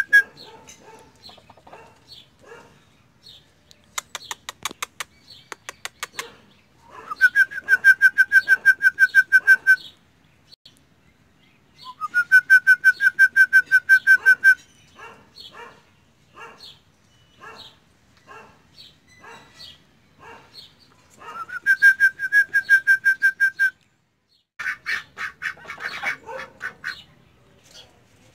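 A loud trilled whistle held at one pitch, each lasting about two and a half seconds and starting with a quick upward slide, sounds three times. Between them come soft, short duck quacks, a quick run of about eight clicks, and a rougher burst of quacking near the end.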